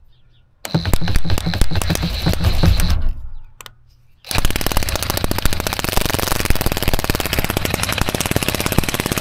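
Cordless drill on slow speed driving a Land Rover LR4 spare tire carrier winch down, with rapid clicking. It runs twice: about two seconds near the start, then, after a pause of about a second, a longer run of about five seconds.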